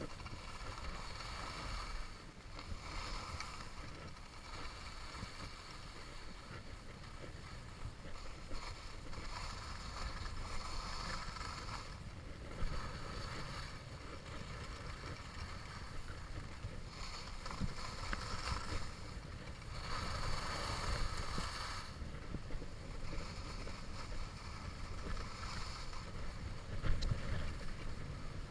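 Skis sliding and scraping on groomed snow, with a swell of hiss every few seconds as the skier turns, over a steady low rumble of wind on the microphone.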